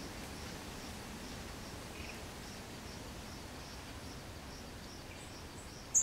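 Quiet open-country ambience: a soft, steady background hiss with a faint high chirp repeating about two to three times a second, and a brief, sharper high chirp at the very end.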